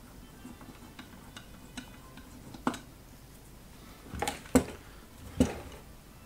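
A screwdriver working the cover screws of a die-cast aluminium instrument housing, with light clicks, then a few sharp metallic clunks as the heavy housing is shifted and turned on the bench. The two loudest clunks come about a second apart, past the middle.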